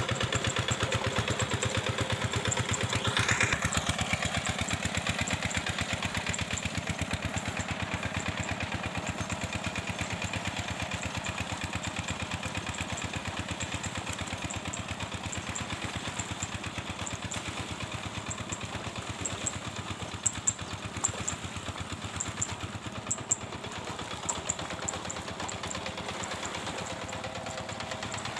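Single-cylinder diesel engine of a hand tractor (two-wheel rice-paddy tractor) running steadily, slowly growing fainter. A few sharp clicks come through in the later part.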